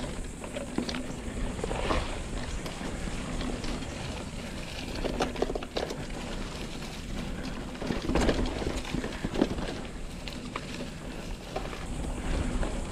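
Santa Cruz Chameleon hardtail mountain bike rolling along a sandy, leaf-covered dirt trail, its tyres crunching and the bike rattling and knocking over bumps. Wind buffets the microphone with a steady low rumble.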